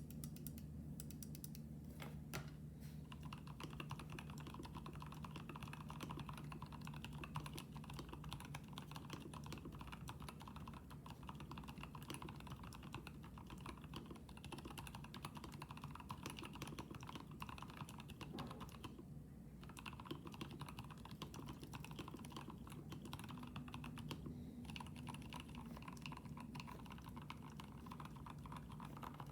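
Fast, continuous typing on a KBD67 Lite mechanical keyboard with a polycarbonate plate, lubed and filmed Boba switches with UHMWPE stems, and Akko Neon keycaps: a dense run of keystrokes that pauses briefly twice, about two-thirds of the way through and again a few seconds later. A faint steady low hum lies underneath.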